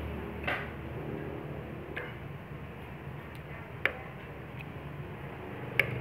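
A metal spoon and chopsticks clinking against a ceramic plate while eating: a handful of short sharp clinks, the loudest about four seconds in, over a steady low hum.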